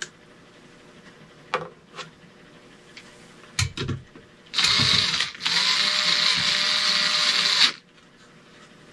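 Electric drill running in two bursts, a short one and then one of about two seconds, each stopping sharply: a driver with a long bit turning screws. A few light clicks and handling knocks come before it.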